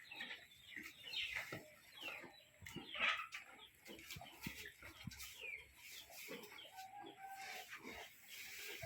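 Chickens clucking and calling: many short, falling calls overlapping one another.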